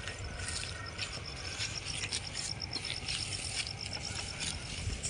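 Fast, even, high-pitched chirping of an insect, about five pulses a second, over a rustling, scraping background with a few faint clicks.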